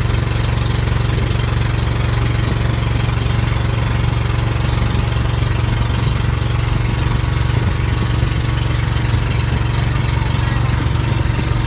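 Motorized outrigger boat's engine running steadily under way, a loud, even low hum that does not change speed.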